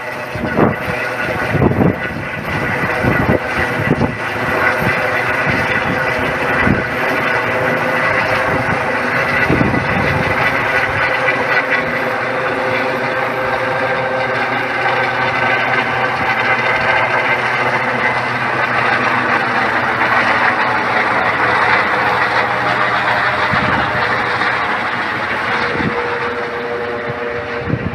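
Eurocopter EC135 air ambulance helicopter flying overhead and climbing away: steady turbine whine and rotor noise. A few low thumps come in the first ten seconds, and the sound fades slightly near the end as it draws off.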